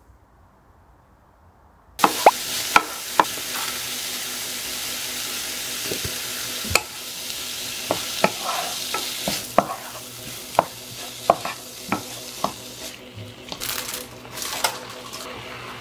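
Food sizzling in a frying pan while a utensil stirs it, tapping and scraping against the pan in many sharp clicks. The sizzle cuts in suddenly about two seconds in, after a quiet start.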